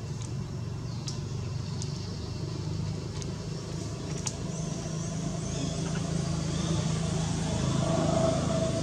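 Low, steady motor-vehicle rumble that grows a little louder toward the end, with faint high chirps over it.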